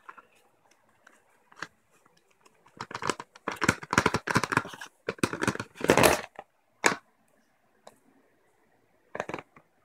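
Cardboard and plastic packaging of a Surface Pro 3 box rustling and crinkling as the box insert is handled and the charger is lifted out. There is a stretch of rustling in the middle, a single sharp tap soon after, and a brief rustle near the end.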